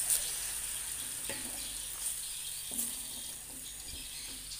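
Pounded cassava leaves sizzling in hot oil in a wok while a metal spatula stirs them, with a few short scrapes of the spatula against the pan.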